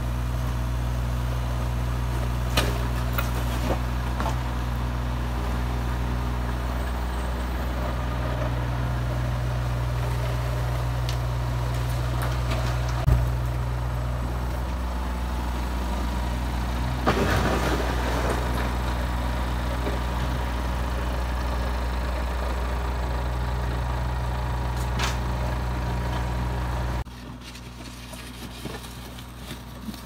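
Diesel engines of construction machinery, a mini excavator and a farm tractor, running with a steady low hum. Occasional knocks come through, with a sharp clank about 13 seconds in and a scraping clatter of earth and stones about 17 seconds in. The engine sound falls much quieter about three seconds before the end.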